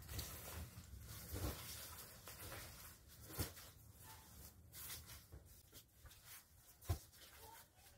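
Faint rustling of padded, quilted winter jackets being handled and folded, with two brief soft thumps, one about three and a half seconds in and one near the end.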